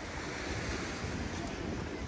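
Sea waves washing on a beach, a steady hiss of surf, with wind buffeting the microphone.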